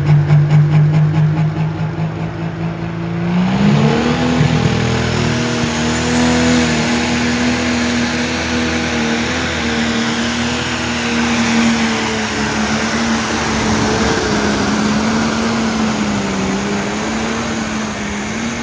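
Turbocharged diesel pulling tractor's engine revving in quick pulses at the line, then going to full throttle about three and a half seconds in and holding high revs under heavy load while it drags the weight-transfer sled, the pitch wavering slightly near the end.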